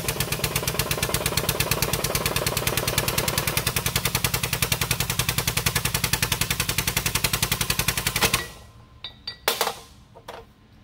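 Air-over-hydraulic bottle jack on a shop press, its air-driven pump pulsing rapidly at about ten strokes a second as the ram presses a worn rear wheel bearing out of its knuckle. The pump stops abruptly about eight seconds in, followed by a few short metallic knocks.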